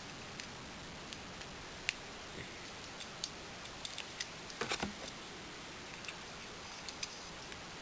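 Scattered light clicks of plastic Bionicle pieces being handled and fitted together, with a short cluster of clicks about halfway through, over a steady faint hiss.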